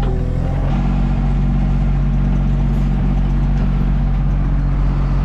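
Mini excavator's diesel engine running steadily under work, its note shifting slightly just under a second in.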